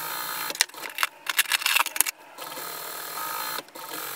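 Sewing machine running steadily as it top stitches along a zipper seam. From about half a second to two seconds in there is a stretch of sharp clicks, and the run dips briefly near the end.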